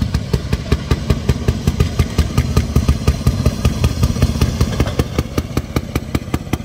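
Engine of a motorized railroad speeder running with a rapid, even popping beat.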